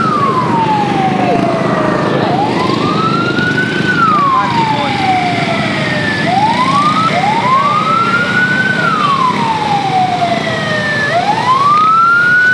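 A vehicle siren wailing, rising and falling in pitch about every two and a half seconds, over the running of motorcycle engines.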